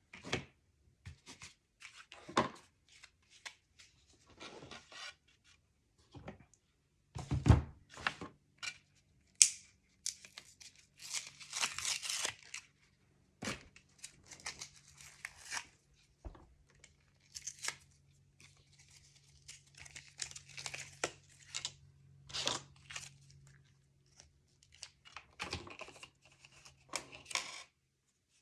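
Paper crafting at a table: repeated short tearing and rustling strokes of paper and adhesive backing, with a few sharp taps, the loudest about a third of the way in. A faint steady low hum runs through the middle.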